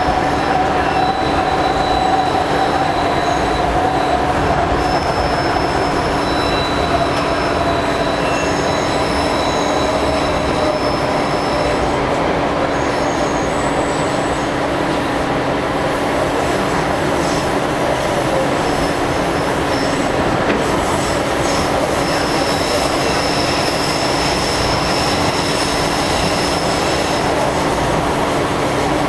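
Light rail car running along the line, heard from inside the passenger car: a steady rumble of wheels on rail, with thin high-pitched wheel squeal coming and going. A whine slowly falls in pitch over the first dozen seconds.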